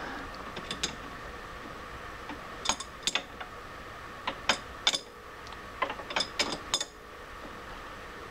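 Metal hand tools and lathe parts clicking and clinking, a dozen or so sharp knocks in small clusters, as a wrench is worked around a stopped metal lathe's chuck and headstock. A faint steady hum runs underneath.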